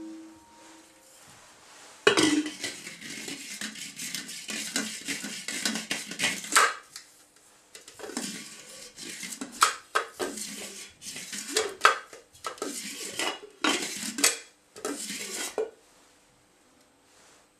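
Thin steel cylinders from a homemade Stirling-engine generator scraping and clinking against each other and the metal base as they are handled and fitted together, in irregular bursts. A faint metallic ring dies away at the start, the clatter begins about two seconds in, and it stops a couple of seconds before the end.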